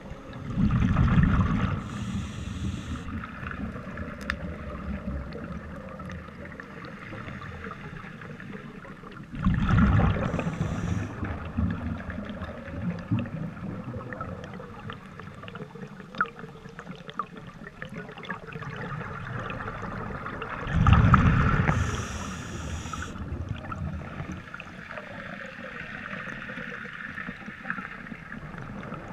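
Scuba diver's breathing heard underwater: three long rumbles of exhaled bubbles about ten seconds apart, each ending in a brief high hiss from the regulator, with faint crackling in between.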